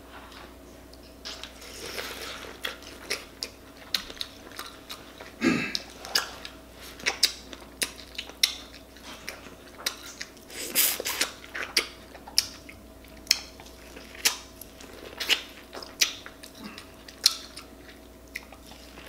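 Close-up eating sounds: someone biting and chewing sauce-coated corn on the cob, with irregular wet clicks and lip smacks.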